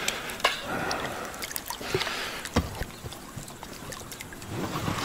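Water splashing and trickling at the side of a small boat as a hooked wild carp is fought near the surface, with scattered light knocks.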